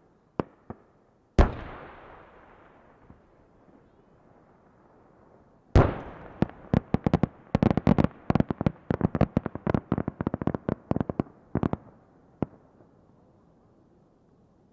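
Aerial firework shells bursting. A loud bang about a second and a half in rolls away slowly; a few seconds later another bang sets off a dense run of sharp crackling pops lasting about six seconds, which thins out and fades near the end.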